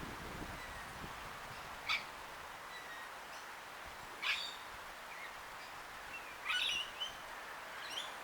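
Birds calling: short, sharp, high chirps about every two seconds, with a brief cluster of calls near the end, over a steady faint background hiss.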